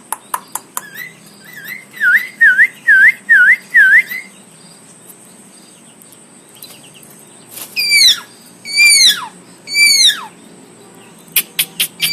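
Javan myna (jalak kebo) singing. It gives a quick run of clicks, then five fast dipping whistled notes, and after a pause four loud whistles that each slide downward. Another run of rapid clicks comes near the end.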